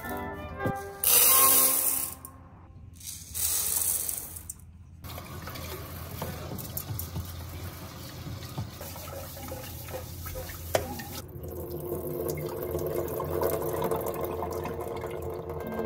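Kitchen faucet running into a pot at the sink as rice is rinsed: two loud bursts of running tap water in the first few seconds, then quieter splashing and handling of the pot. Soft background music comes in about two-thirds of the way through.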